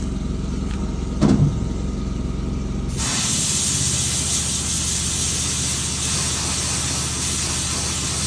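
A steady spraying hiss starts about three seconds in and runs on, cleaner or air being sprayed to flush metal chips out of the transmission valve body and screen. A low steady engine hum runs underneath, with a short loud sound about a second in.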